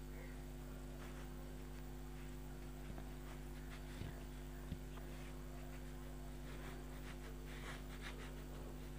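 Quiet room tone with a steady low electrical hum, faint soft rustles, and two small clicks about four and five seconds in.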